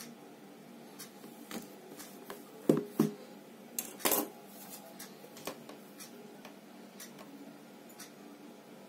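A shrink-wrapped cardboard phone box being handled, with light clicks and plastic-wrap crinkles. Two knocks come close together about three seconds in, and a sharper knock about a second later as the box is laid on a wooden table.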